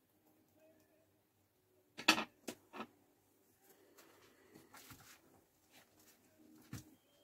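Scissors and ribbon being handled on a glass shop counter: a sharp clatter about two seconds in, two lighter clicks right after, then scattered small clicks and rustling.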